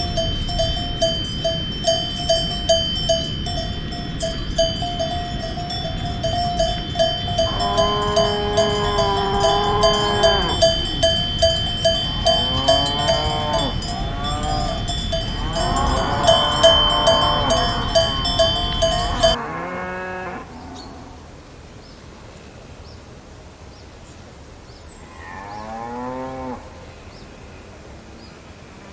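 Cows mooing in several long calls over the steady clanking of a cowbell, about two clanks a second. The bell and a low background rumble stop abruptly about two-thirds of the way in, and one more, fainter moo follows.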